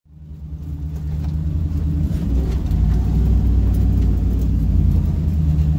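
LS V8 engine of a 1969 Nissan Patrol G60 running at low, steady speed as the truck drives along a dirt trail, heard from on board with a steady low drone, fading in over the first second.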